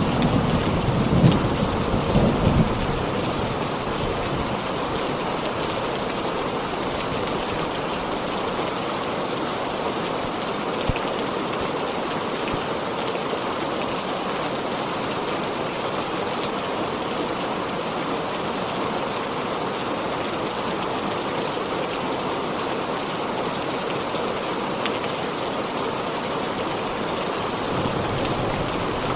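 Heavy rain falling steadily in a thunderstorm. A low roll of thunder dies away in the first two or three seconds, and another low rumble begins to build near the end.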